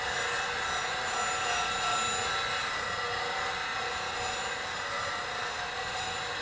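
Bench grinder running with an 80-grit CBN wheel while the steel nose of a bowl gouge is ground against it: a steady grinding hiss with several high steady tones from the spinning wheel.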